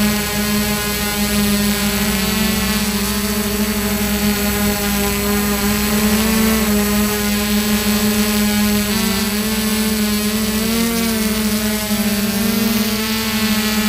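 Multirotor drone's electric motors and propellers, on DJI E300 motor pods, running with a steady high whine close to the microphone. The pitch wavers a few times as the motors speed up and slow down to hold and turn the drone.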